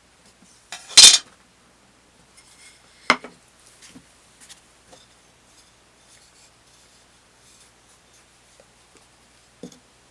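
Handling noises from work on a workbench: a loud short clatter about a second in, a sharp knock about two seconds later, then scattered light taps and scraping, and one more knock near the end.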